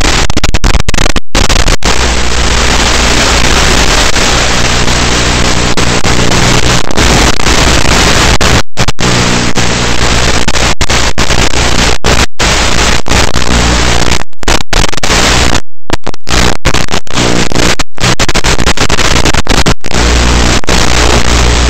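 Loud static hiss on the analog FPV link's audio, with the RC plane's motor and propeller drone underneath it, cutting out to silence for split seconds again and again: the radio signal breaking up.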